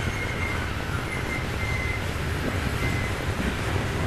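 Norfolk Southern coal cars rolling past: a steady low rumble of steel wheels on the rails, with a few brief, thin wheel squeals.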